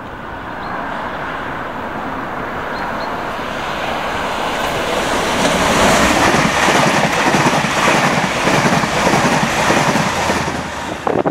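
Passenger train approaching and then passing close by, growing louder as it nears. About halfway through its wheels clatter over the rail joints as the carriages go past.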